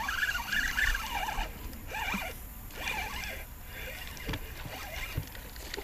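Spinning reel cranked in short bursts, about once a second, to work a topwater popper back across a shallow creek, over the low steady rush of the creek water.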